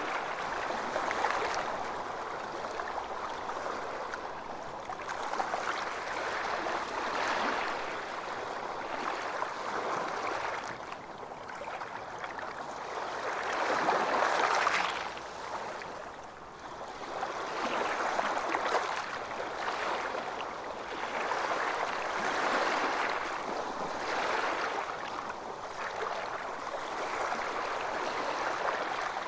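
Calm water waves washing and lapping, a continuous splashy wash that swells and ebbs every few seconds, with one larger swell about halfway through.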